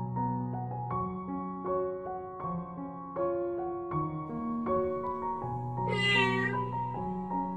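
Piano music, with a kitten meowing once about six seconds in.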